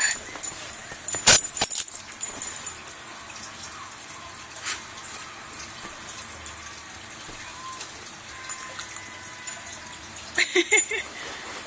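Two dogs, a German Shepherd puppy and a small chihuahua mix, play-fighting right against a phone's microphone: a couple of sharp knocks about a second in, scuffling and hiss after that, and a quick run of short vocal sounds near the end.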